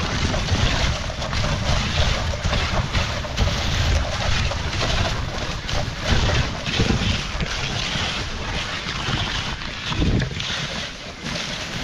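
Dogsled runners hissing and scraping over snow as the dogs pull the sled along the trail, with an uneven rumble of wind buffeting the microphone.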